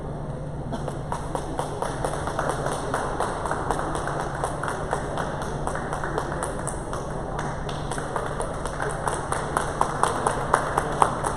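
Scattered hand clapping in a large hall, many quick irregular claps that grow louder near the end, over a steady low hum.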